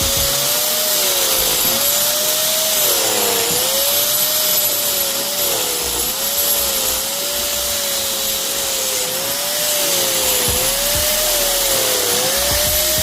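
Electric angle grinder cutting out old, cracked mortar joints in masonry, running continuously with a wide gritty hiss. Its motor whine sags in pitch and recovers again and again as the wheel bites into the joint and eases off.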